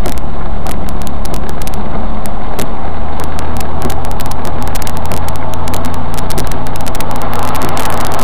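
Vehicle driving in heavy rain, heard from inside: a steady engine and road hum under a noisy wash, with many sharp irregular ticks, all loud and overloaded. Right at the end a louder rushing wash comes in as the vehicle ploughs through water on the flooding road and spray covers the windscreen.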